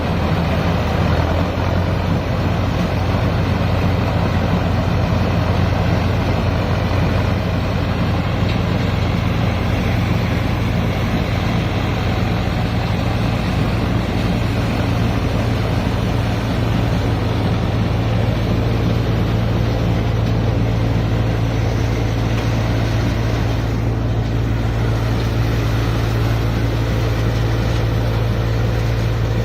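Mahindra Arjun 605 tractor's diesel engine running steadily under load, driving a mini combine harvester. It makes a loud, even drone together with the harvester's machinery.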